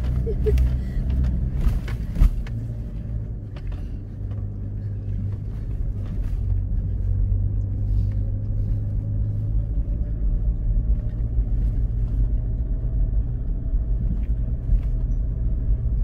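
Four-wheel-drive vehicle's engine and tyres running with a steady low rumble on a sandy track, heard from inside the cabin. A few knocks and rattles in the first couple of seconds.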